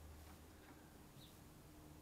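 Near silence: room tone with a steady low hum and one faint short high peep about a second in.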